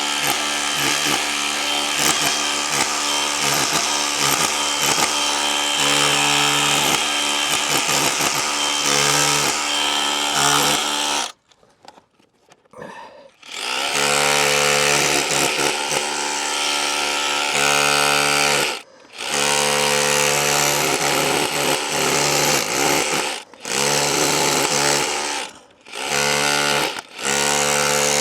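DeWalt DCH263R2 cordless SDS-plus rotary hammer chiselling into a wall with a chisel bit, running in long bursts. It stops for about two seconds near the middle and several more times briefly toward the end.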